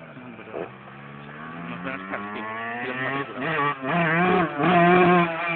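Motorcycle engine approaching and growing steadily louder, the rider working the throttle up and down as it nears. It is loudest near the end, with its pitch beginning to drop as it passes.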